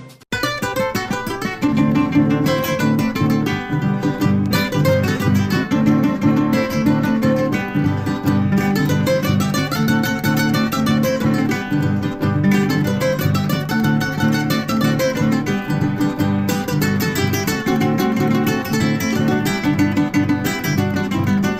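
Upbeat acoustic guitar music, strummed in a quick steady rhythm, starting right after a brief gap.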